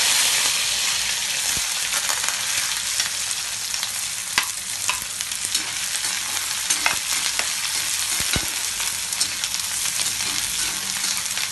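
Chopped red onions and curry leaves frying in hot oil in an iron kadai: a steady, high sizzle that eases slightly. A slotted metal spatula stirs them, clicking and scraping against the pan a few times.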